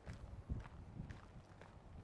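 Footsteps on a rocky trail, about two steps a second, each a low thud with small crunches and clicks of stones.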